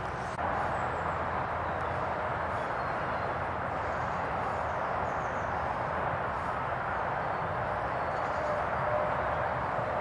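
Steady hiss of distant road traffic, with a few faint high bird chirps a few seconds in.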